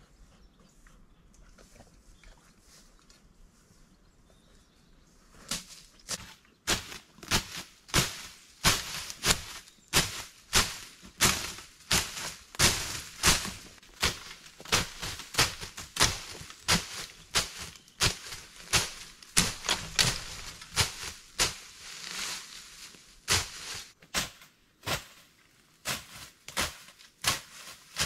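A hand-held blade hacking and slashing through brush and ferns in quick repeated strokes, about two a second, starting about five seconds in.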